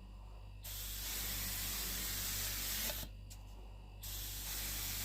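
Paint being sprayed onto MDF in two bursts. A steady hiss starts under a second in, cuts off about three seconds in, and starts again a second later, all over a constant low hum.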